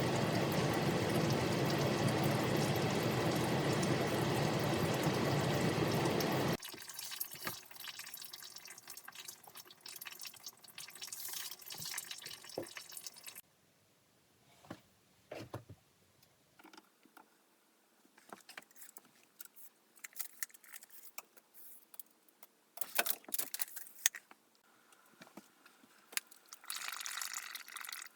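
Water running steadily through a PVC condensate P-trap, then cutting off abruptly after about six and a half seconds. Scattered drips and light knocks follow.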